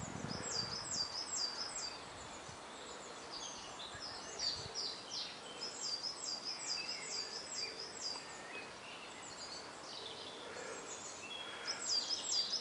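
A songbird singing outdoors: runs of four or five quick, high, down-slurred notes, repeated several times, with other small chirps between them. From about seven seconds in, a faint low double beep repeats about every three seconds, in the pattern of a UK telephone ringing tone.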